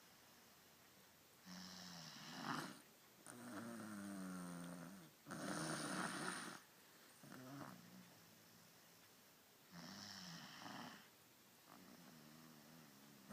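Snoring: about six uneven snores, some raspy and some with a wavering pitched whine that slides down in pitch around four seconds in, the sound changed by someone playing with the sleeper's nose.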